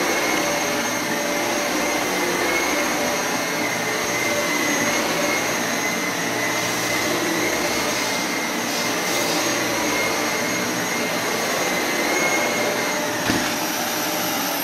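Dyson Cinetic Big Ball Animal + Allergy upright vacuum cleaner running while being pushed back and forth over carpet: a steady rush of air with a high whine. There is a single sharp click near the end.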